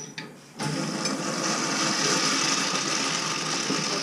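A click, then about half a second in a urinal's flushometer valve flushes: water starts rushing suddenly and keeps up a steady, hissing rush.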